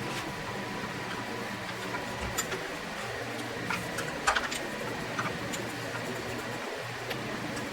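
An air compressor running with a steady hum, with a few light, sharp clicks and taps scattered through, the loudest about four seconds in.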